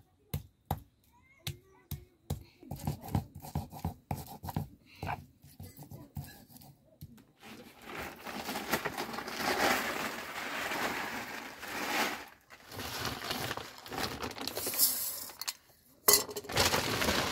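A run of sharp clicks and knocks, then a long stretch of plastic bags rustling and crinkling as they are handled, with a brief pause and a sudden louder crinkle near the end.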